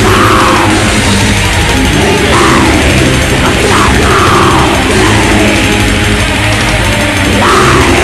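Heavy metal music with distorted electric guitars from a demo recording, loud and dense, with a few gliding notes in the middle register.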